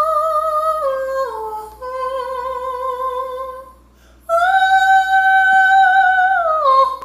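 A single high voice sings long held notes with vibrato: a few notes stepping down, a short break about four seconds in, then a higher note held for about two seconds that glides down near the end.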